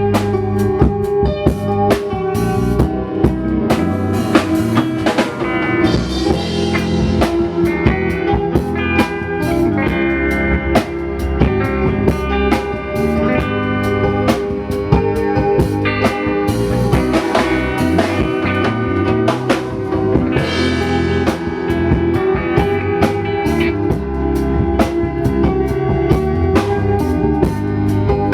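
A live church band playing through a sound check: a drum kit keeping a steady beat under guitar, with no singing.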